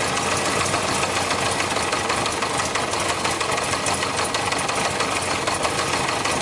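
Yamaha Diversion's four-cylinder engine running steadily with its fuel pump disconnected, living on what is left in the float bowls; it sounds like it's run out of fuel.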